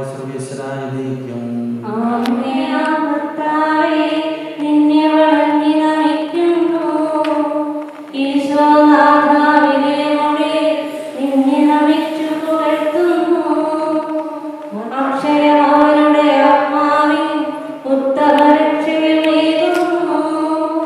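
Liturgical chant sung during a church wedding service. A low man's voice sings for the first two seconds, then a higher voice carries on in slow phrases of long held notes.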